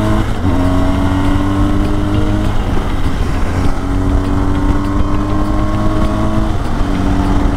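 BMW GS boxer-twin motorcycle engine pulling hard under acceleration. Its pitch climbs steadily in each gear and steps down at the upshifts, about two and a half and six and a half seconds in. Wind rushes over the microphone.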